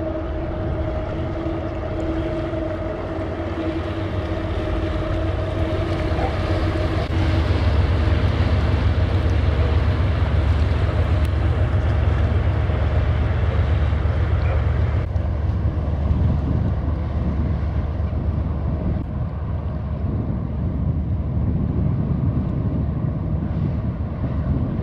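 Passing inland motor cargo ship's engine: a steady low rumble, with a humming tone over the first several seconds. A rushing hiss swells in the middle and falls away about fifteen seconds in.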